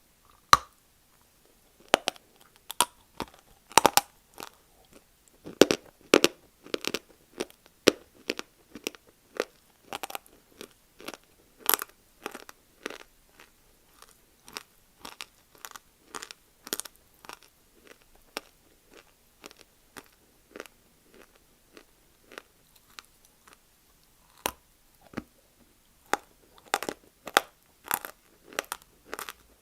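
Person biting and chewing dry Multani mitti (fuller's earth clay), a rapid run of sharp crunches. The crunching is dense at first, thins to softer, sparser chewing in the middle, and picks up again near the end.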